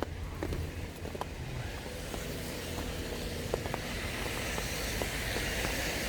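Road traffic running on a wet street: a steady low engine rumble, with tyre hiss building toward the end and a few scattered light ticks.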